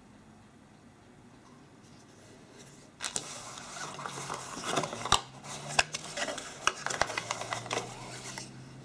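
Faint room tone, then about three seconds in a run of handling noise starts: rustling and scraping of a phone's packaging, with many sharp clicks and taps as its contents are taken out.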